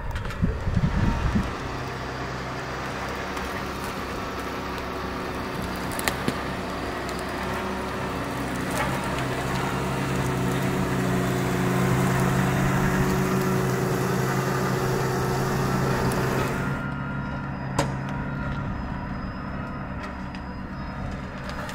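Tractor diesel engine running steadily under load while a mounder digs, with a few low thumps in the first second or so. The hiss drops away abruptly near the end, leaving the engine's steady hum.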